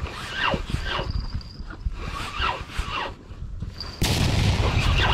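Birds calling: a run of short calls, each falling sharply in pitch, about two a second. About four seconds in, a sudden loud rushing noise sets in.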